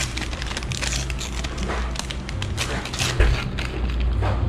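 Thin paper takeaway bag of Taiwanese fried chicken being torn open and rustled by hand: a dense run of crinkles and rips.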